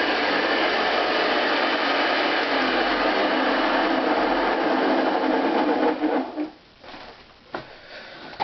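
Hoover Convertible model 589 upright vacuum running steadily, then switched off about six seconds in and winding down, followed by a few light clicks.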